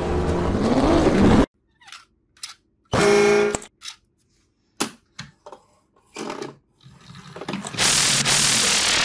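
Loud film soundtrack that cuts off about a second and a half in. Then scattered clicks of plastic toys being handled and a short pitched tone about three seconds in. Near the end comes a rough rattle of about a second as a toy combine harvester with a roller reel is pushed along a wooden table.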